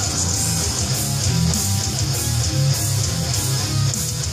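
Background heavy metal music: distorted, down-tuned guitars chugging low, with drums and regular cymbal hits.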